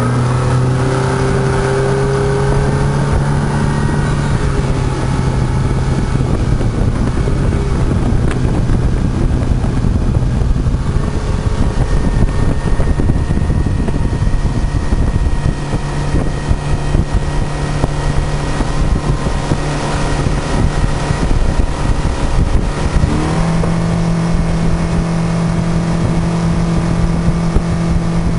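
Motorboat engine running steadily at speed, with wind noise on the microphone; late on, the engine note rises and holds higher.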